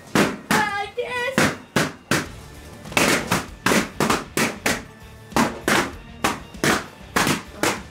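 Latex party balloons being popped one after another, sharp loud bangs about two a second, over background music.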